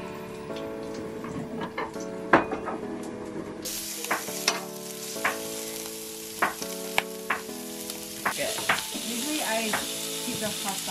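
Lamb racks sizzling on the hot griddle plate of a gas barbecue, with sharp clicks of metal tongs as the pieces are laid down. The frying hiss starts about four seconds in and keeps going.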